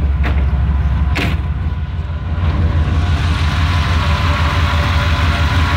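1992 Chevrolet Silverado's engine idling cold after a cold start in freezing weather, with a steady whine that grows louder about three seconds in as the open engine bay comes close: the whine of a cold engine. Two sharp clacks in the first second and a half, as the frozen hood is worked open.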